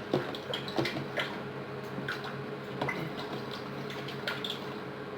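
Light, scattered clicks and taps of a spoon and containers while cream is added to a bowl of buko pandan mixture, over a low steady hum.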